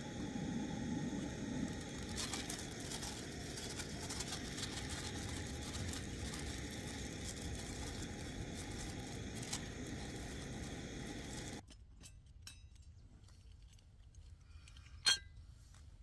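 A steady rushing noise that cuts off abruptly about three-quarters of the way through. It gives way to a quiet room with a few faint clicks and one sharp, ringing clink near the end.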